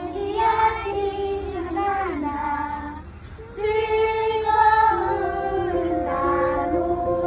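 A high voice singing a melody in sustained, gliding notes with a short break about three seconds in. From about five seconds in, a second steady held tone sounds beneath it.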